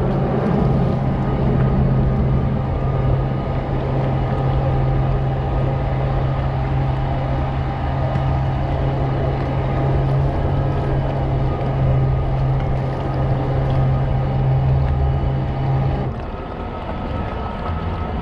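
Jet kayak's motor and jet drive running at a steady hum under way, with water rushing past the hull; the hum stops about two seconds before the end, leaving only water and wind.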